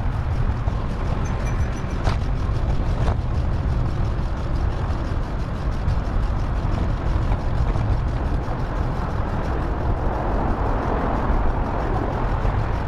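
Steady rumble of wind and road noise from a moving bicycle ride, with vehicle traffic; two faint clicks about two and three seconds in.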